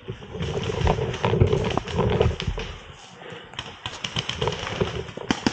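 Paintball markers firing during play: irregular sharp pops and clicks, with a quick string of shots about three and a half seconds in, over the rustle and rumble of movement on the microphone.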